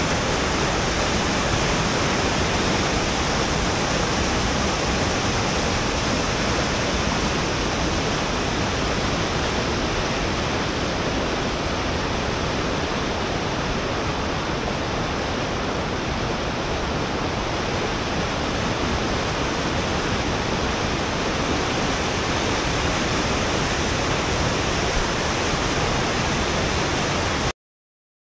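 Rushing water of river rapids: a steady, even rush with no change, cut off suddenly near the end.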